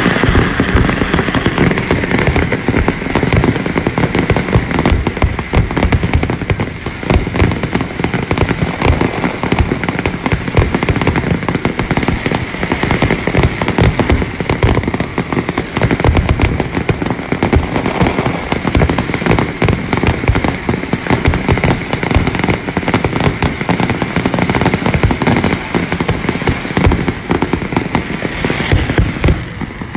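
Aerial fireworks display going off in a steady barrage: many shells launching and bursting in quick succession, one bang running into the next without a break.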